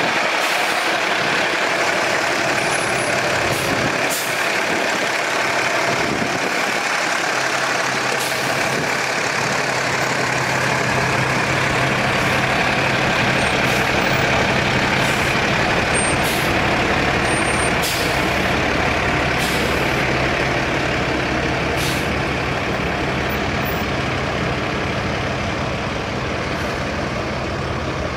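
Refuse truck's Cummins ISC 8.3-litre inline-six turbo diesel running steadily, with a loud even rushing noise over it. A low engine hum grows stronger a few seconds in.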